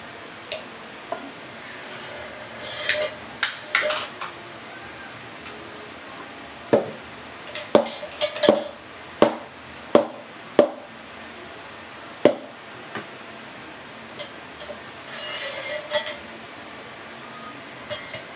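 A glass French press and a metal milk pitcher being handled: short hissing stretches of frothed milk moving between them, and in the middle a run of about seven sharp knocks and clinks of metal and glass.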